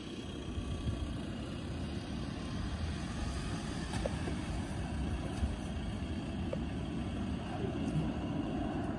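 Low, steady rumble of a distant four-engined Airbus A380 airliner on approach, growing slightly louder as it comes closer.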